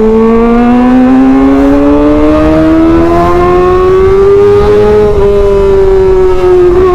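Kawasaki ZX25R's 250 cc inline-four, breathing through an SC Project titanium exhaust, pulling hard under acceleration. The loud engine note rises steadily for about five seconds, then dips slightly and holds, over a low noisy rumble.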